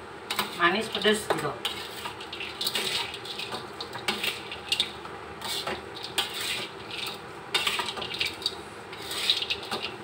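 Metal spatula scraping a wok and tossing dry, crisp fried shredded-potato sticks with peanuts, a crunchy rustling broken by irregular scrapes and taps against the pan.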